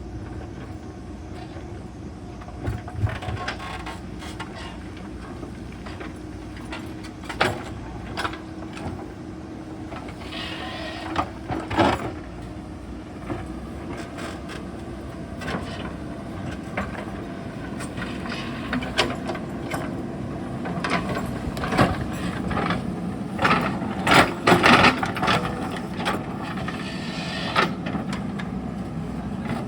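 JCB backhoe loader's diesel engine running steadily under load, with repeated knocks and clattering of the bucket and stones, heaviest in two bursts around the middle and near the end.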